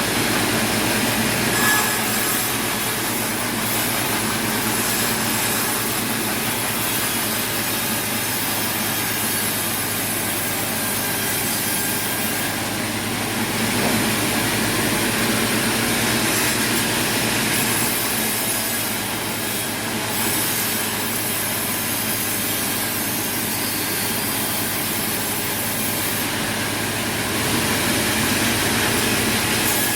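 Sawmill saw running and cutting through wood, a steady machine noise.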